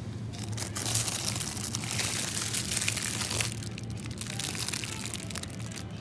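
Thin plastic bag around a bunch of bananas crinkling as it is grabbed and lifted off the shelf, the crackling easing off after about three and a half seconds. A steady low hum runs underneath.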